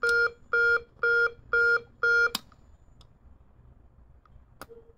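Notifier AMG-1 audio message generator sounding a pulsed march-time fire alarm tone through a speaker, about two beeps a second. It cuts off with a click a little over two seconds in, and a few faint clicks follow.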